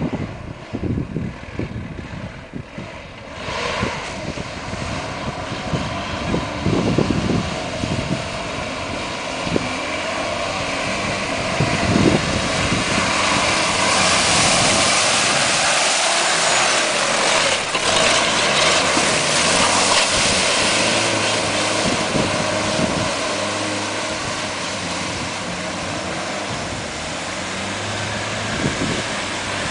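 Toyota Land Cruiser BJ40's diesel engine running under load as it ploughs through mud and water, with the spray and churning of the tyres; the noise builds and is loudest and harshest midway.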